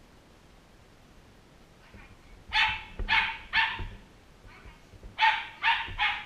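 Small dog barking: six sharp, high barks in two quick runs of three, starting about two and a half seconds in.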